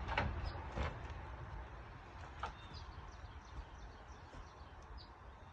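A few faint, light clicks and taps from hardware being handled, fading in the first seconds, over quiet outdoor background with a few faint high chirps.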